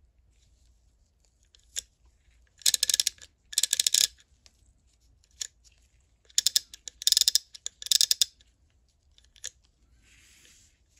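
Billings S-1410 Vitalloy 1/2-inch-drive ratchet clicking as it is turned: five quick runs of rapid pawl clicks, two close together and then three more a couple of seconds later.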